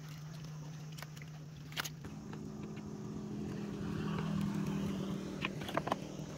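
A small engine running steadily, its pitch stepping up and getting louder about two seconds in. A few sharp knocks come over it, once near the start and two or three times near the end.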